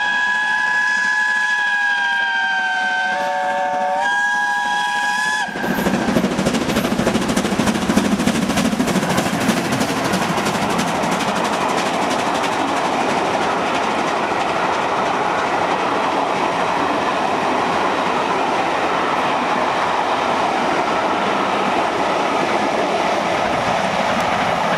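Steam locomotive 70000 Britannia, a BR Standard Class 7 Pacific, sounding a long multi-note whistle that dips briefly about three seconds in and stops about five and a half seconds in. Then the engine works past close by, loudest just after the whistle, and its coaches follow, rolling by with a steady rumble and wheels clattering on the rails.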